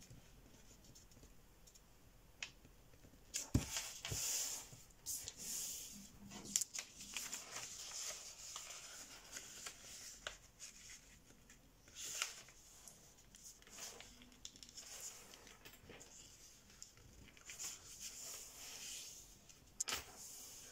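A sheet of 80 g/m² printer paper being folded by hand: soft rustling and brushing in short, irregular bursts as a flap is laid over and the crease is pressed and run flat with the fingers, with a couple of light knocks.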